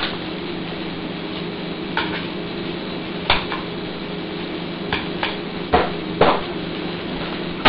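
Metal utensil scraping and knocking against a cream cheese tub and bowl, several short sharp clicks a second or so apart, the loudest near the end, over a steady sizzle and low hum from the stove.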